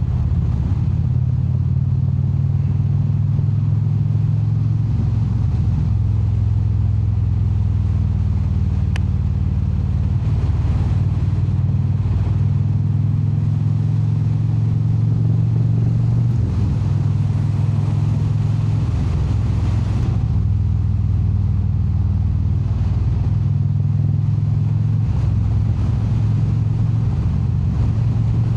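Indian Super Chief Limited's V-twin engine running under way, a steady low drone whose pitch shifts a few times with throttle and speed.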